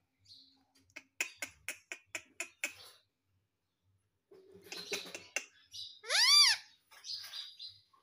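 Indian ringneck parakeet making a quick run of sharp clicks, then chattering, then a loud whistle that rises and falls, the loudest sound here, followed by more chatter.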